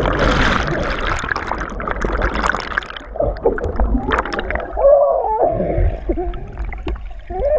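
Water splashing and churning, then from about three seconds in people calling out over the water.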